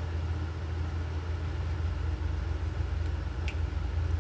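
Steady low motor-like hum, with a short faint click about three and a half seconds in.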